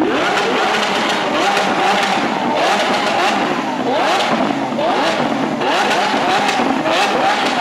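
Lamborghini Aventador V12 engines revved hard in rapid repeated throttle blips, each a short rising whine, with sharp cracks between the revs.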